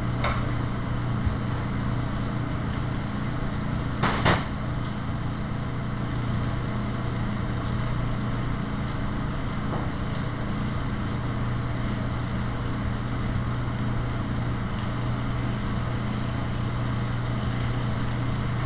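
Steady hum and rush of a commercial kitchen exhaust hood fan running, with a single brief clatter about four seconds in.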